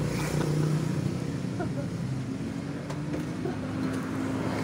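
Motorbike engines in passing road traffic: a steady hum that shifts in pitch, with a few faint clicks of utensils.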